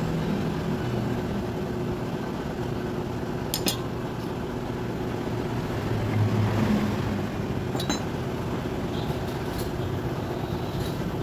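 Steady mechanical hum in the background, with two sharp metal clicks, one a little over three seconds in and another about four seconds later, as steel tools knock against the hand planer's blade assembly while the blade is set.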